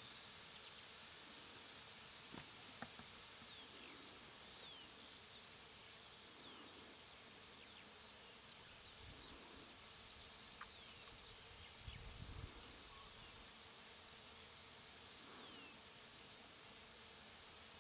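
Faint meadow ambience: a steady, high pulsing insect trill with a few short falling bird chirps. A brief low thump comes about twelve seconds in.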